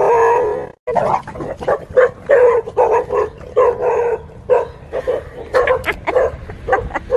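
Dogs barking in quick succession, about two barks a second, alarmed at a fake tiger dragged toward them. Before the barking, a drawn-out cry cuts off under a second in.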